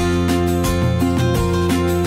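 Background music: acoustic guitar strumming chords over a sustained low bass line.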